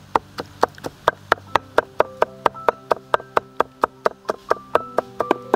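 Cleaver chopping garlic cloves on a wooden chopping block: quick, even knocks at about four a second.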